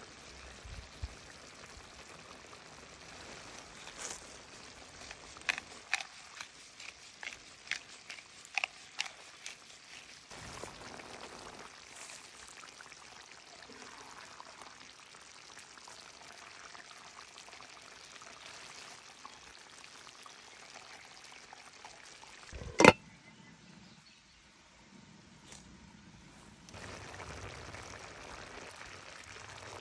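A pot of salmon and vegetable stew simmering, a steady soft bubbling with a scatter of small pops and clicks in the first third. One sharp knock stands out about two-thirds of the way through, the loudest sound in the stretch.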